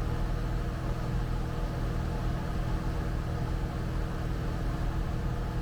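Cessna 172 Skyhawk's piston engine and propeller in cruise flight, heard inside the cabin as a steady drone with an even low hum and a couple of faint steady tones.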